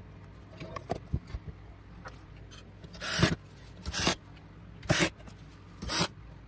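Parts of a Vifa Oslo speaker's housing being handled and fitted together: a few light clicks, then four short scrapes about a second apart.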